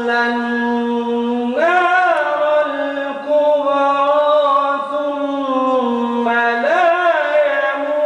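A man chanting the Quran in the melodic tajweed style, drawing out long held notes. He rises into a higher, ornamented phrase twice, about two seconds in and again near the end.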